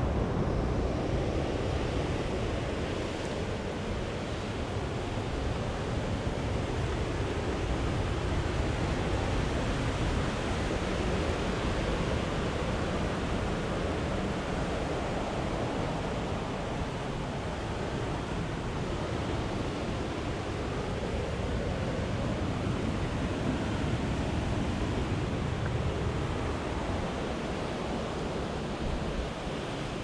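Ocean surf washing steadily against the cliffs below, with wind buffeting the microphone in a low, uneven rumble.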